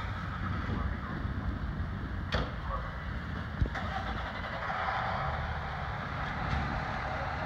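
Fire department command SUV's engine running as it pulls out of the firehouse bay, over the low rumble of the fire apparatus idling inside. A sharp click about two and a half seconds in and a short knock about a second later.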